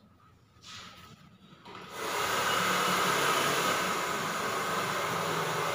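A steady rushing noise, like moving air, starts abruptly about two seconds in and holds evenly, after a short softer rush about a second in.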